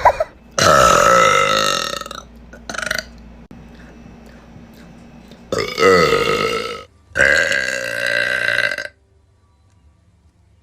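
Girls burping: three long, loud, drawn-out burps of one to two seconds each, with a short burp shortly after the first.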